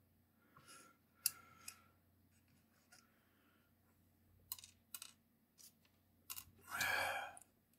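Scattered light clicks and clacks as small plastic model parts and their holding clips are handled and pulled off a painting stand. A louder, brief rustling scrape comes near the end.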